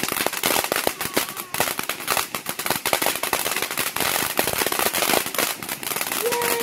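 Firework crackling: a dense, rapid run of sharp pops, many a second, without a break.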